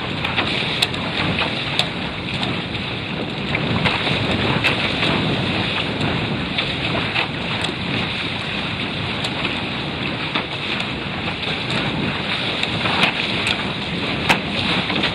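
Water rushing and splashing along the hull of a Prindle 16 catamaran sailing at speed, with wind buffeting the microphone. Frequent short, sharp slaps of spray and small waves cut through the steady rush.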